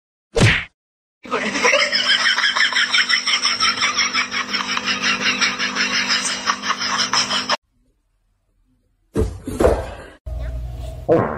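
A person laughing hard in fast, continuous pulses for about six seconds.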